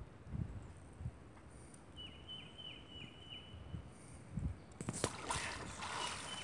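Water splashing as a person stands up out of waist-deep creek water, starting about five seconds in and the loudest sound here. Before it, a bird gives a quick run of short chirps.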